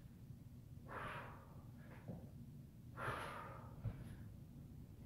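A woman breathing hard while exercising: two forceful breaths out about two seconds apart, one with each downward chop of a hand weight, each trailed by a fainter breath.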